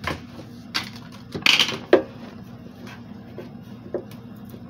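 Things being handled and moved about: a few light knocks and clicks, with a brief rustle about a second and a half in that ends in a sharp knock, over a low steady hum.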